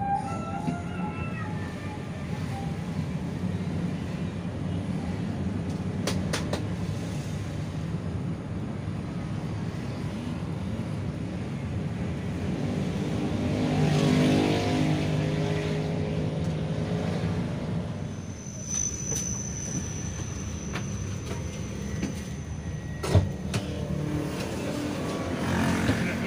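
Intercity bus in motion, heard inside the cabin: a steady low engine and road rumble. Around the middle the engine note swells and rises under acceleration, then eases off. Later a thin high tone sounds for a couple of seconds, and a single sharp knock follows.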